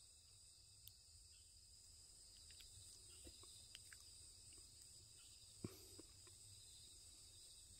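Near silence, with a faint steady high insect chirring and a couple of faint clicks.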